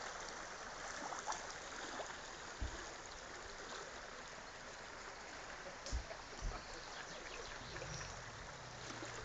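Stream water running steadily in a continuous rushing hiss, with a few dull low bumps around the middle.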